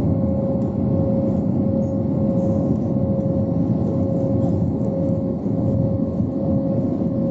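Airbus A320neo cabin noise in the climb after takeoff, heard from a window seat: a steady engine and airflow rumble with one steady tone held above it.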